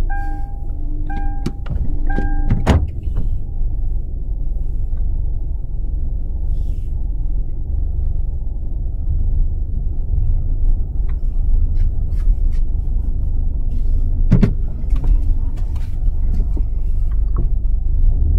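Car interior while driving: a steady road and engine rumble. A repeating chime sounds for the first few seconds and then stops, and there is a sharp click about fourteen seconds in.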